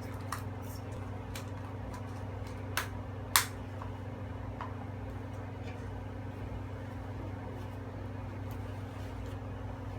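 Steady low mechanical hum with a few light clicks and taps of small objects being handled, the sharpest about three and a half seconds in.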